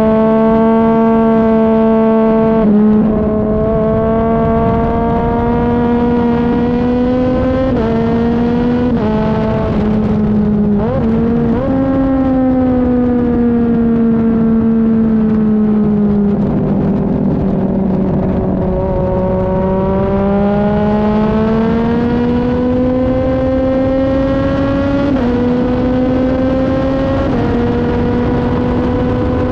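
Sport motorcycle engine at track speed, heard from a tail-mounted onboard camera with wind rush underneath. The engine note climbs and drops in steps as it shifts up, glides up sharply a couple of times around ten to twelve seconds in, and sinks slowly through the middle. It then climbs again, with two more upshifts near the end.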